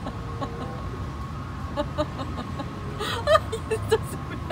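A woman laughing in a few short, breathy bursts, clustered about three seconds in, over a faint steady high tone.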